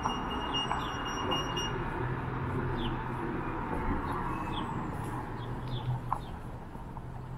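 Street ambience: small birds chirping in short high calls at intervals over a low hum of distant traffic, with a steady high-pitched tone that cuts off about two seconds in.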